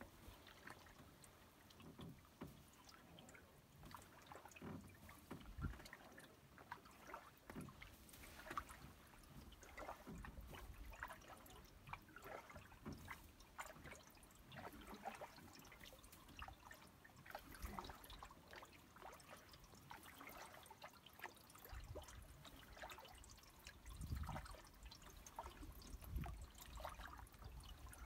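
Small ripples lapping and trickling faintly against a canoe's hull as it drifts on open water, with a few soft low thumps, mostly near the end.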